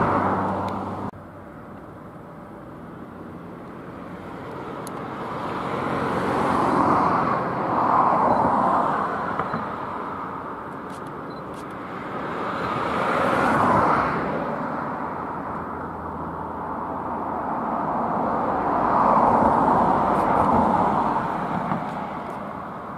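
Vehicles passing three times, roughly six seconds apart, each one swelling and then fading away.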